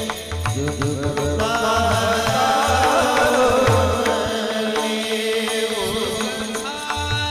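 Marathi kirtan music: a man's voice singing a melody over held sustained notes, with low drum strokes and sharp cymbal-like clicks keeping the beat.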